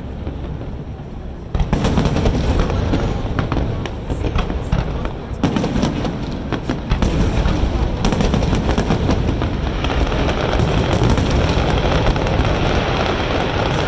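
Fireworks exploding in a dense, rapid barrage of booms and crackling bangs. The barrage gets sharply louder about one and a half seconds in and keeps up without a break.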